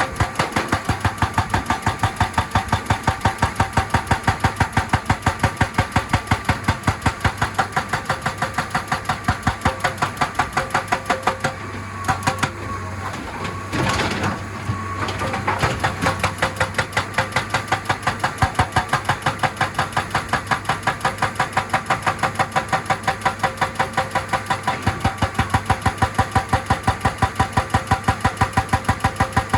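Excavator-mounted hydraulic breaker hammering rock in rapid, even blows over the excavator's running diesel engine. The hammering stops about twelve seconds in and starts again about three to four seconds later.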